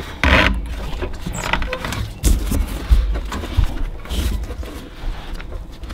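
Golf cart drive belt being worked off its clutch pulley by gloved hands: rubbing and scraping with irregular knocks and clunks.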